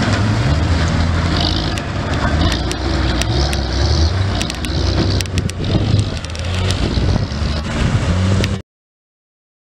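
Military 6x6 cargo truck's engine running hard and revving up and down as it works through deep mud, with scattered sharp clicks. The sound cuts off suddenly about eight and a half seconds in.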